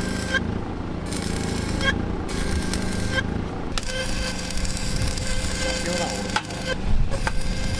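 Stick (shielded metal arc) welding on steel rebar and form ties: the arc crackling and sizzling. The crackle breaks off briefly three times in the first four seconds, over a steady low hum.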